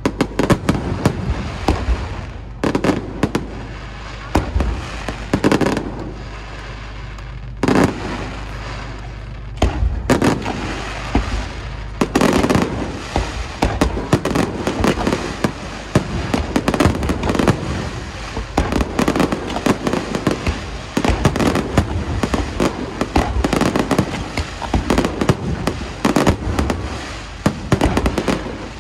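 Fireworks display: a long volley of shell bursts, many sharp bangs in quick succession, coming thickest in the second half.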